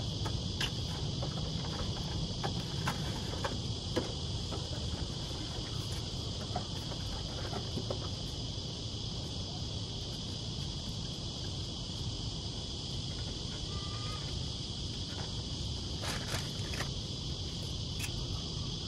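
Insects chirring steadily at a high pitch over a low background rumble, with scattered faint clicks and taps from hands handling wires.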